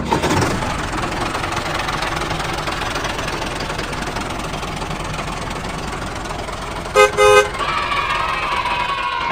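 A vehicle engine running steadily, with two short horn toots about seven seconds in and a faint whine that slides slightly lower near the end.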